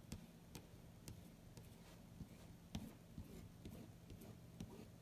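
Faint scraping and soft, irregular ticks of a squeegee rubbing ink through a screen-print transfer on a cloth towel, over a low steady hum.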